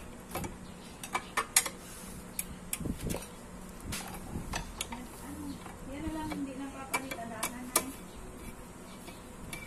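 Metal tools clinking and tapping: a long socket extension bar knocking against bolts and the aluminium radiator frame in a series of sharp, irregular clinks.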